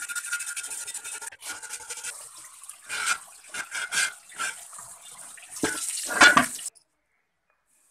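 A stiff brush scrubbing the rusty metal base of a pedestal fan, then, about a second and a half in, tap water splashing onto the base in uneven bursts as a hand rubs it clean.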